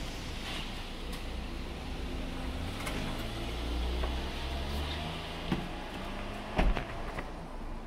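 A motor vehicle's engine running and passing on the street, a low hum that drifts in pitch over a steady rumble. Three sharp knocks come in the second half, the loudest about six and a half seconds in.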